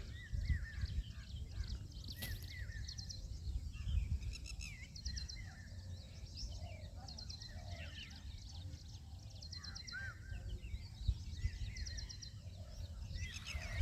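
Several small birds chirping and trilling, with short rising-and-falling chirps and rapid repeated high trills, over a steady low rumble.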